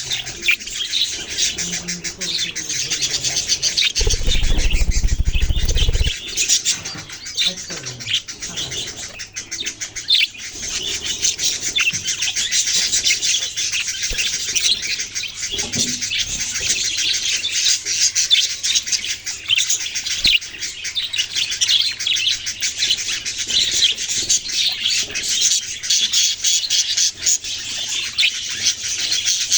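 Many small parrots chirping and twittering nonstop in a dense chorus. A loud low rumble comes in about four seconds in and lasts about two seconds.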